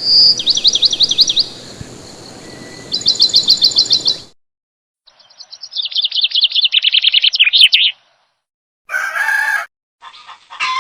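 Bird chirps in fast repeated trills, in three separate runs broken by dead silence, then a short, harsher call near the end.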